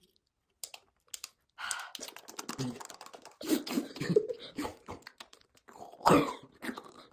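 ASMR trigger sounds close to the microphone: irregular tapping, clicking and scratching, with a few short vocal noises about halfway through and again near the end.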